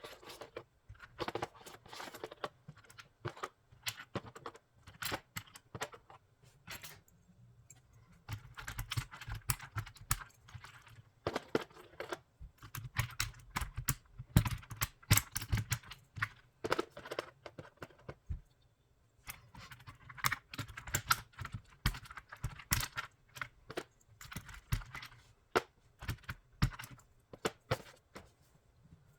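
Plastic keycaps being pulled off a mechanical keyboard with a keycap puller: a steady run of sharp clicks and light plastic clatter as caps pop off the switches and are handled, with short pauses about 7 and 18 seconds in.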